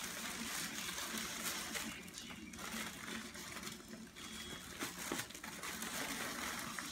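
A kitten rummaging inside a thin plastic garbage bag, the plastic rustling and crinkling unevenly as it moves.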